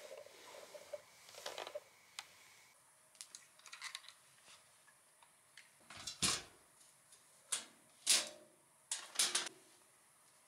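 Irregular clicks and knocks, as of objects being handled and set down, with three louder knocks in the second half.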